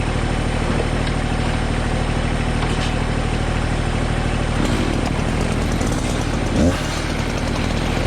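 Small engine idling steadily, with a brief rise in pitch about six and a half seconds in.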